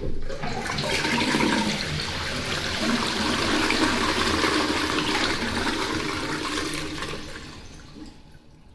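Toilet flushing: a concealed push-button cistern emptying into a stainless steel pan, water rushing for about seven seconds and then tapering off near the end.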